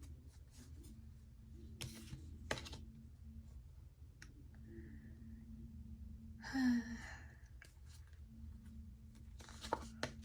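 A woman sighing once, about six and a half seconds in, with a few faint clicks and taps before and after, over a low steady hum.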